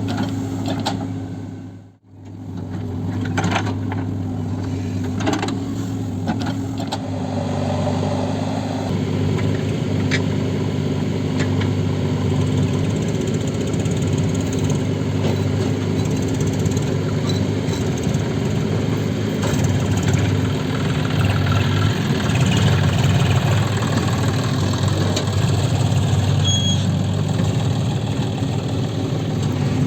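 Heavy diesel engine running steadily under work, with occasional metal clanks. The sound dips out briefly about two seconds in, then returns.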